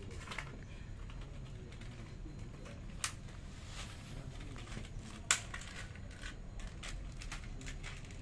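Plastic blister packaging of a set of bicycle brake pads being handled and opened by hand: scattered small clicks and a short crinkle, with two sharper snaps about three and five seconds in.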